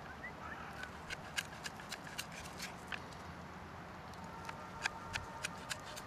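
Kitchen knife slicing a slab of bacon, the blade knocking on a plastic cutting board in a quick run of sharp clicks, about three or four a second, with a short pause in the middle.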